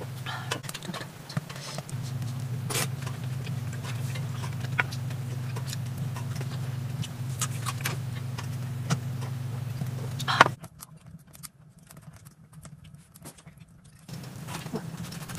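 Small clinks and knocks of a glass beer bottle and tableware being handled over a steady low hum. The hum stops abruptly about ten seconds in, leaving a quieter background.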